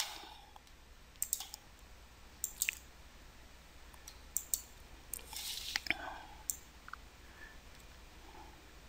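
Faint, scattered clicks from a computer mouse, about eight in all at irregular intervals, with a soft rustle of movement about halfway through.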